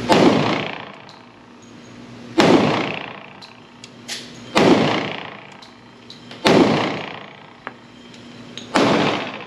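Glock 20 pistol in 10mm Auto fired five times at a slow, even pace, about two seconds apart, the last shot near the end. Each sharp report rings on in the reverberation of an indoor range.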